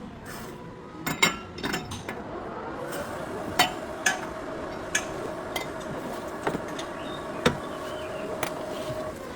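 Metal tools and parts clinking and knocking, with sharp strikes scattered over several seconds, over a steady whine that sets in about three seconds in.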